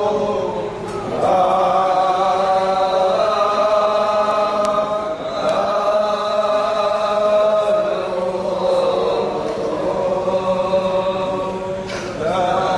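Voices chanting a devotional chant in unison, holding long notes that glide slowly from one pitch to the next.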